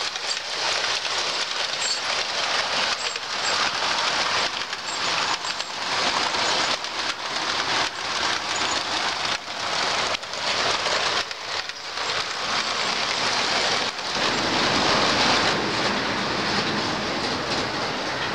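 O scale two-rail model trains running past at close range: metal wheels and motors on metal track, a steady rushing noise with many small clicks through it, fuller and lower from about three-quarters of the way in.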